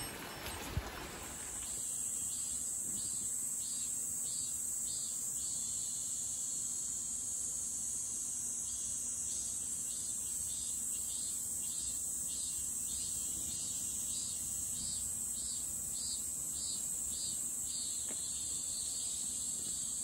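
Chorus of summer insects: a steady high-pitched drone with a pulsing call over it, about three pulses every two seconds. Rain fades out in the first second or so.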